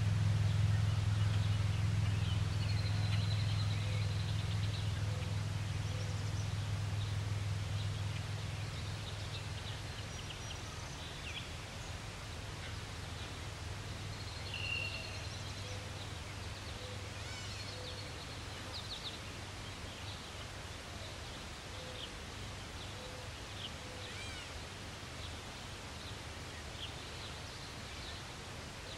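Birds chirping and calling now and then over a steady low rumble, which is loudest at the start and fades over the first ten seconds.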